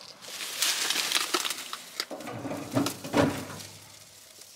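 Dry brush and twigs rustling and crackling as someone pushes through them on foot, with a sharp snap of a branch about three seconds in.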